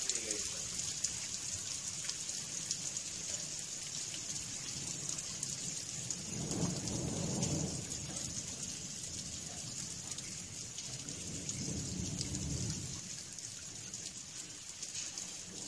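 Steady rain hissing, with two low rolls of thunder: the first, louder one about six seconds in, and a second about eleven seconds in.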